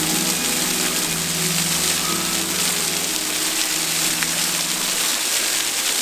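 Spring-fed waterfall streaming down a mossy rock face: a steady hiss of falling and splashing water. Soft background music with long held notes runs underneath and fades out about five seconds in.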